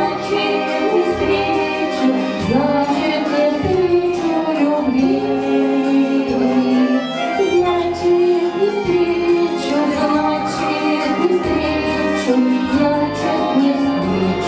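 Two women singing a duet into microphones, holding long notes over an instrumental accompaniment.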